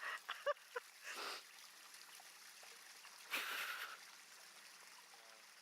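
Bath water splashed by ducklings paddling: two short splashes, one about a second in and a louder one just after three seconds, with a few short chirpy calls at the start.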